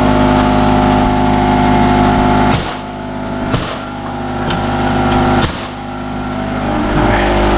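A motor running with a steady hum, dipping in loudness twice and building back up, with a few sharp knocks.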